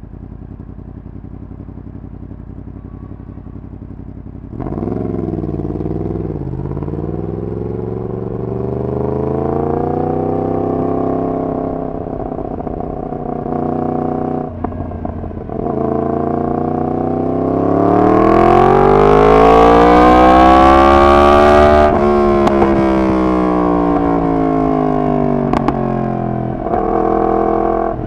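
Yamaha MT-10's crossplane inline-four running through a decat full exhaust system. It rumbles low for the first few seconds, then pulls away about four and a half seconds in, its pitch rising and falling through the gears. A long hard pull climbs to its loudest about twenty seconds in, then the pitch drops sharply off the throttle, with a few short cracks as it slows.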